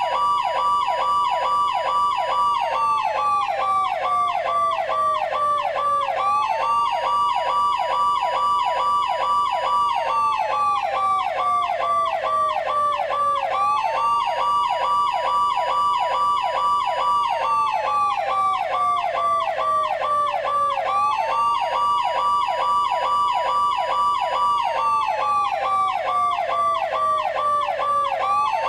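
Police car siren sound effect from the Machine RS cars. A wail rises quickly, holds for about two seconds, then slides slowly down, and it repeats about every seven seconds. Under it runs a rapid, steady pulsing tone.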